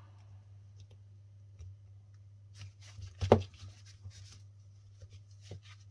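Light handling noises as a stripped battery pack of 18650 lithium-ion cells and multimeter test probes are moved and the probe tips are set against a cell's terminals: scattered small clicks and rustles, with one louder knock about three seconds in. A low steady hum runs underneath.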